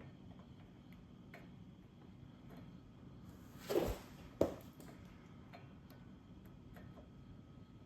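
Light, irregular metallic clicks of hand tools working a threaded spark plug insert into a motorcycle cylinder head. A short scrape comes just before four seconds in, followed by a sharp knock.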